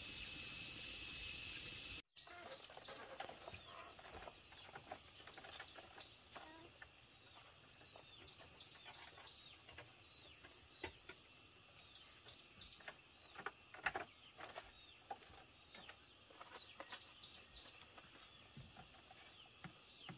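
A songbird repeating a short phrase of quick falling high notes every three to four seconds, with faint scattered taps and rustles. It is preceded by a steady high-pitched buzz that stops abruptly about two seconds in.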